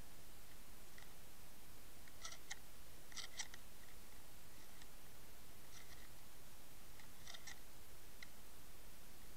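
Steady faint hiss heard through an underwater camera, with sharp short clicks, mostly in pairs, several times from about two seconds in.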